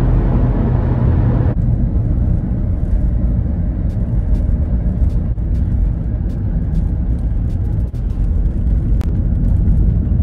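Car driving, heard from inside the cabin: a steady, loud, low road-and-engine rumble. A brighter hiss over it drops away about a second and a half in.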